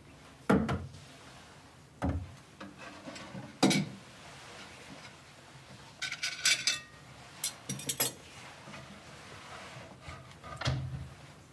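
Three knocks on a wooden table, then two quick runs of metallic clinks as a spoon and fork are set down on a glass plate, and a last dull thump near the end.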